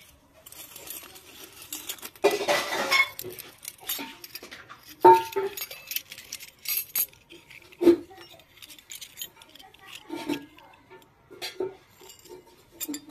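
Miniature stainless steel toy utensils clinking and clattering as they are handled and set down on a concrete floor: a burst of jangling about two seconds in, then separate metallic clinks every second or two, some ringing briefly.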